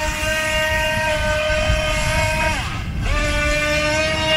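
FT009 radio-controlled speedboat's electric motor whining steadily at speed; about two and a half seconds in the pitch drops as the throttle is let off, then it spins back up half a second later.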